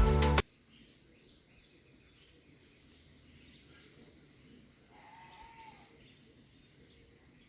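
A song cuts off abruptly just under half a second in. Then faint outdoor ambience with a few short, high bird chirps and one brief rising-and-falling call about five seconds in.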